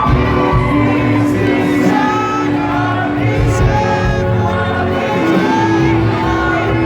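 Live rock band playing loud amplified music, with long held notes over a heavy bass, sung vocals, and a crowd shouting along.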